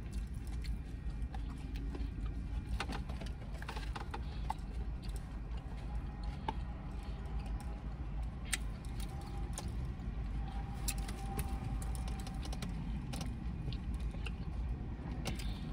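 Someone eating a salad: scattered clicks, taps and crunches of a fork and plastic container and chewing, over a steady low hum inside a car.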